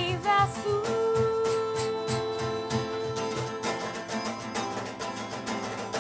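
Acoustic song played live: the sung line ends, a long note is held for about three seconds, then plucked-string accompaniment and hand percussion carry on in a steady beat.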